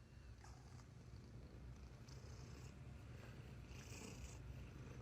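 A cat purring: a faint, low, steady purr that grows a little louder.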